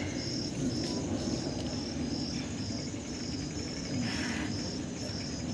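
Crickets chirping in short, evenly spaced high trills, about two a second, over a low background murmur of a gathered crowd.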